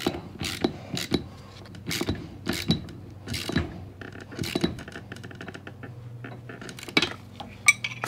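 A socket ratchet clicking in short strokes as the 9/16 nut and bolt on a garage door torsion spring's center bracket are tightened, with a wrench holding the other side. Metal clinks and taps of the tools come between the strokes, and there is a fast run of ratchet clicks about halfway through.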